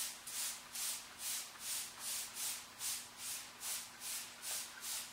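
Nikwax TX Direct waterproofing being sprayed from a pump bottle and worked over wader fabric by gloved hands: short hissing strokes, about two a second, in a steady rhythm.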